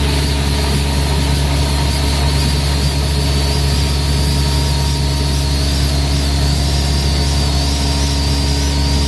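Guzzcavator truck-mounted vacuum excavator running steadily: a deep, even engine drone with a thin, slightly wavering high whine over it.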